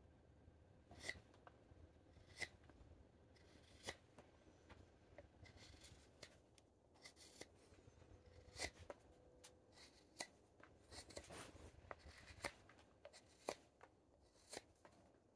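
Straight carving knife slicing thin shavings off the outside of an end-grain wooden goblet bowl, paring away the axe marks: faint, crisp cuts about once a second, with a few short runs of quicker scraping strokes.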